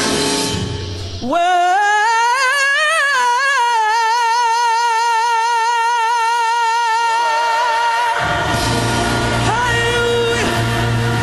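Live gospel music: a single high voice slides up and runs through an ornamented line, then holds one long high note for several seconds. About eight seconds in, the band and choir come back in on a sustained closing chord with a low bass note.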